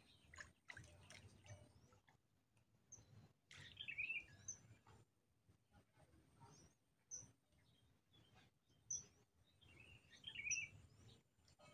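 Faint bird chirps: short high chirps every second or two, with two brief warbling phrases about four seconds in and again near the end.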